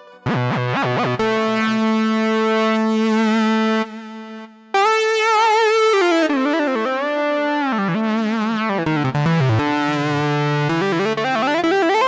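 Yamaha Montage M8X synthesizer playing a lead sound. It holds one note that stops about four seconds in. After a short near-pause, a new line starts with a wavering vibrato, slides down in pitch and climbs back up near the end.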